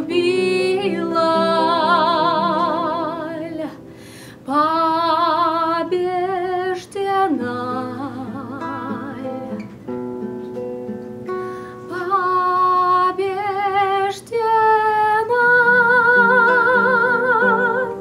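A woman singing long held notes with a wide vibrato over a fingerpicked classical guitar, in several drawn-out phrases. In the middle the voice drops away for a few seconds and the guitar carries on more quietly before the singing returns for a final held note.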